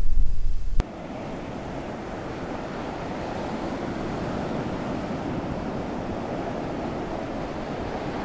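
Wind buffeting the microphone for the first moment, then a sudden change to a steady, even wash of ocean surf.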